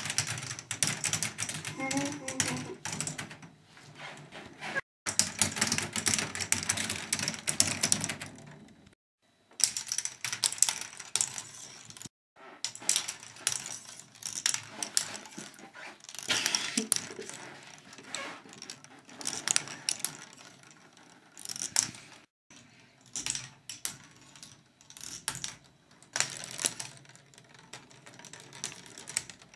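Plastic balls rolling through a K'nex ball machine: rapid, irregular clicking and clattering of the balls against plastic rods and connectors, broken by a few brief silent gaps.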